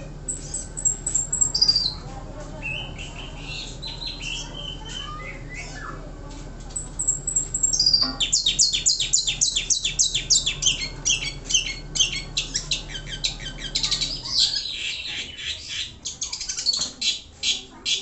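Caged long-tailed shrike (pentet) singing: high whistled notes falling in pitch at the start, then softer warbling, then from about eight seconds in a loud, fast run of rapidly repeated chattering notes. A low steady hum underneath stops about fourteen seconds in.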